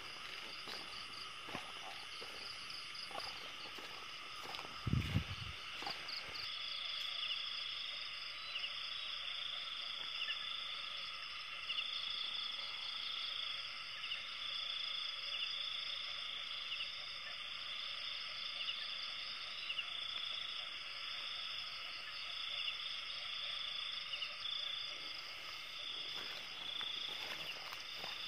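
Night insect chorus of crickets, a steady high chirring, with one insect joining from about six seconds in with a trill that pulses on and off in a regular rhythm. A single low thump comes about five seconds in.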